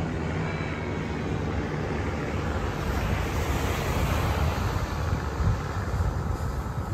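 Steady drone of a formation of vintage propeller warplanes passing overhead at a distance, under a rush of wind on the microphone.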